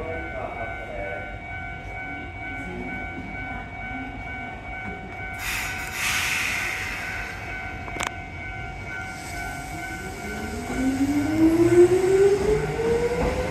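Keisei 3400 series electric train pulling away from the platform. A burst of hissing air comes about five seconds in. From about ten seconds the traction motors' whine climbs steadily in pitch as the train accelerates, and the train noise grows louder.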